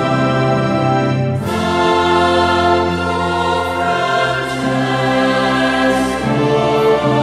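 Choral music: a choir singing slow held chords, moving to a new chord every two seconds or so.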